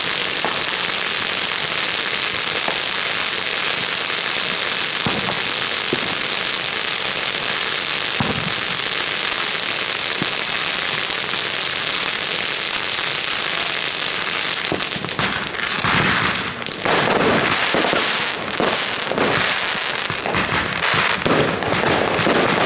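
Fireworks fountains hissing and crackling steadily as they throw out showers of sparks. About two-thirds of the way in, the sound turns louder and choppier, with a quick run of firecracker bangs and crackles as aerial fireworks go off.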